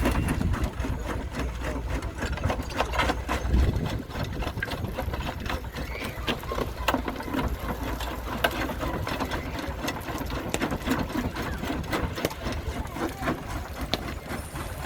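Goodwin Barsby Acme stone crusher running under belt drive from a traction engine: a fast, rhythmic mechanical clatter with many sharp knocks of stone being broken. A heavier low rumble underneath eases after about four seconds.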